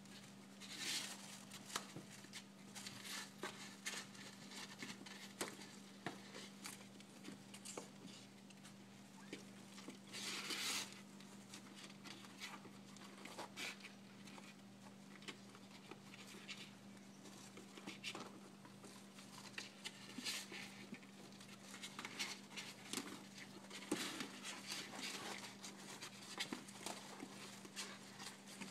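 Kittens scrabbling and pattering about in a cardboard box: irregular faint taps, scratches and short rustles, over a steady low hum.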